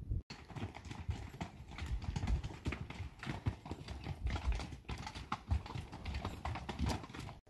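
Hooves of a saddle horse and pack animals clopping on a rocky trail as a pack string walks by, many uneven strikes overlapping.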